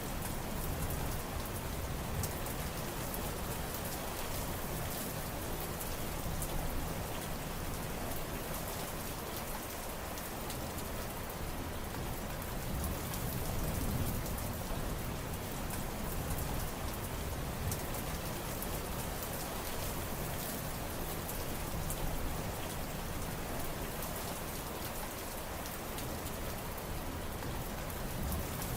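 Steady rain: a dense, even hiss of falling rain with the patter of individual drops, over a low rumble that slowly swells and eases.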